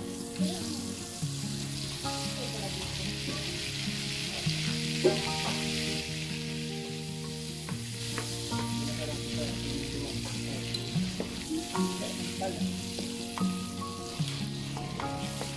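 Butter melting and sizzling in hot oil in a metal wok, with a steady frying hiss. A wooden spoon stirs it and now and then clicks against the pan, most sharply about five seconds in.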